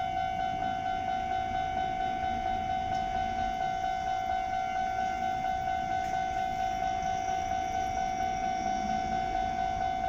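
Japanese railway level crossing alarm ringing: a steady electronic bell tone struck over and over at a quick, even pace. It signals that a train is approaching the crossing.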